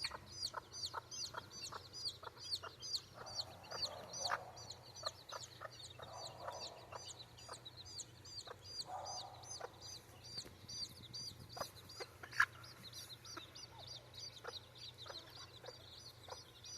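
Baby chicks peeping steadily, a few high chirps every second, with a mother hen clucking softly now and then.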